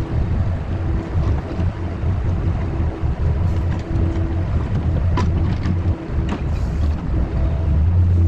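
Skid steer engine running steadily with a strong low rumble.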